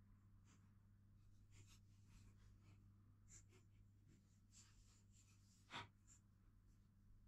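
Near silence: faint rustles and small clicks of thin load-cell wires and pliers being handled, with one sharper click about six seconds in, over a low steady hum.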